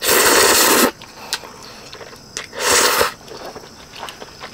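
A person slurping Jjapaghetti noodles loudly, twice: a long slurp about a second long at the start, then a shorter one a little before three seconds in.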